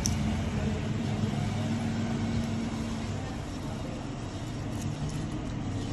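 A steady low mechanical hum, an engine or motor running evenly.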